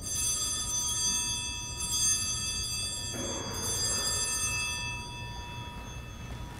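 Altar bell rung at the elevation of the chalice after the consecration. It is struck a few times, and its high, clear tones ring on and slowly fade.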